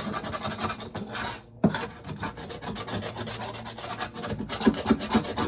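A hand tool scraping old bedding and droppings out of a chicken coop in quick, repeated rasping strokes, with one sharp knock about a second and a half in.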